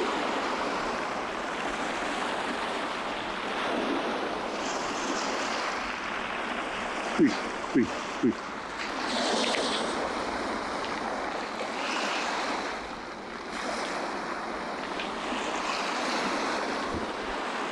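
Small waves washing onto a pebble beach, a steady surf hiss that swells every few seconds as the water runs up over the stones. Three short sharp sounds come in quick succession about seven seconds in.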